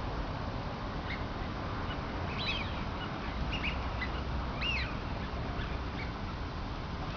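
Wild ducks giving a series of short, high whistling calls, each rising and then falling in pitch, about five spread over several seconds, over a steady background hiss.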